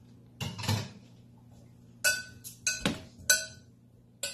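A utensil clinking against a glass mixing bowl while broccoli florets are tossed in oil and salt: a short rustle about half a second in, then several sharp ringing clinks over the last two seconds, the loudest a little past three seconds in.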